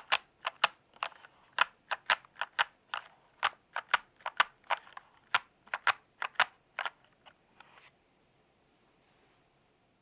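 Typing on a Royal Kludge RK96 mechanical keyboard: irregular keystrokes, a few a second, that stop about eight seconds in.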